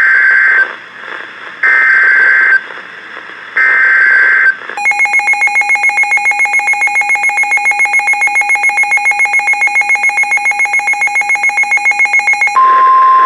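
Emergency Alert System warning on NOAA Weather Radio: three short screechy bursts of SAME digital header tones, then a fast-pulsing electronic alarm beep, about six beeps a second, for about eight seconds. Near the end the steady single-pitch weather-radio warning alarm tone comes on.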